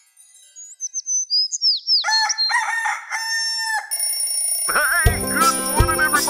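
Cartoon sound effects: a few quick high gliding bird whistles, then a rooster crowing in several pitched calls. Upbeat music with a regular drum beat comes in about five seconds in.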